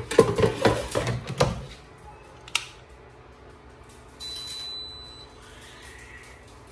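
Air fryer basket being pushed back into the unit: a clatter of knocks for about a second and a half, then one sharp click. About four seconds in, the air fryer's touch control panel gives a high beep lasting about a second.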